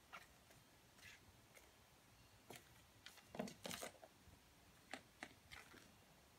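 Faint scattered taps and light clatters of a kitten batting a small toy mouse across a hard tile floor, with a quick cluster of louder taps about halfway through.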